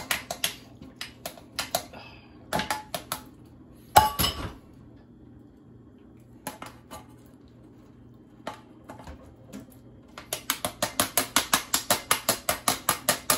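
A metal saucepan knocking against the rim of a plastic colander to shake out the last of the drained macaroni. Scattered clicks and one louder knock about four seconds in, then a quick run of about eight taps a second near the end.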